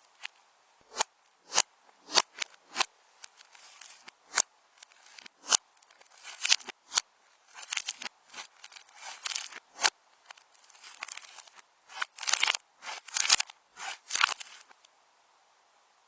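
Slime being squished and poked by hand, making irregular sharp clicks and short crackling pops that stop near the end.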